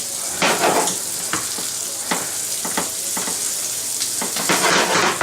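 Tortilla sandwich frying in a butter spread in a hot pan: a steady high sizzle, with a few short scrapes and knocks as it is moved around in the pan.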